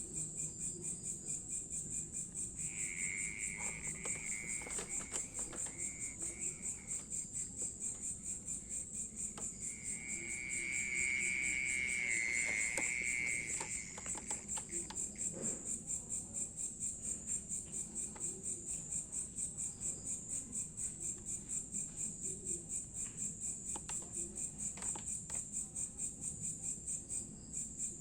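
Unidentified insect calling from among potted plants: a steady, high-pitched ringing trill that pulses rapidly. A lower whistling tone joins it twice, and the sound is loudest around ten to thirteen seconds in.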